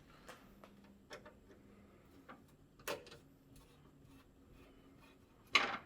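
Scattered small clicks and ticks of a screwdriver working self-tapping sheet-metal screws out of an oven door panel. There is a louder knock about three seconds in and a sharp clack just before the end.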